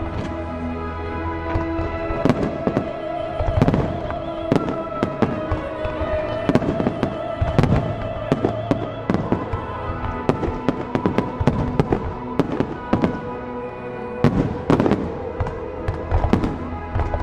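Fireworks display at its grand-finale barrage: aerial shells bursting in quick, irregular succession, with bangs often overlapping and a denser cluster near the end. Music with long held notes plays underneath.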